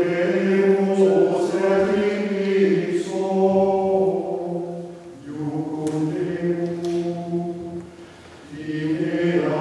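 Mixed choir singing a cappella in long, held phrases, dipping briefly for breaths about five seconds in and again near the end.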